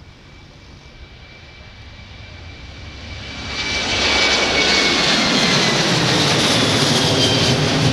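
Boeing 737-800 freighter's CFM56 jet engines at takeoff thrust as it lifts off and climbs past, the jet noise swelling sharply about three and a half seconds in to a loud, steady rush. A high whine runs through it and slowly falls in pitch as the aircraft goes by.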